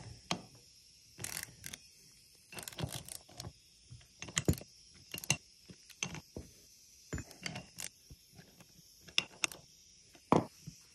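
Small hand ratchet with a hex-bit socket clicking in short irregular runs, the socket clinking on the cap screws, as the bolts of a ball-screw bearing housing are re-tightened.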